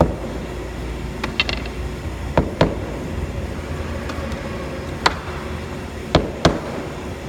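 Steady machine hum with a held mid-pitched tone from a CNC wood router running, broken by several sharp knocks at irregular intervals, two of them in quick succession about two and a half seconds in and two more near the end.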